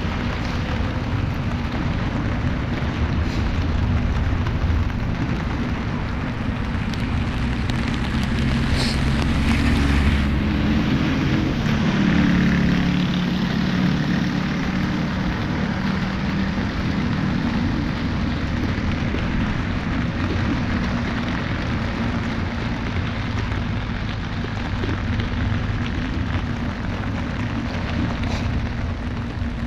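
Steady rain and the hiss of tyres on a wet road in city traffic, with low engine hum; a motor vehicle passes close, louder about a third of the way in.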